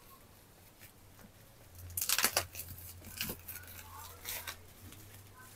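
Plastic wrapping being peeled and torn off a broom handle: crinkling, tearing rustles, the loudest about two seconds in, then a few shorter ones over the next couple of seconds.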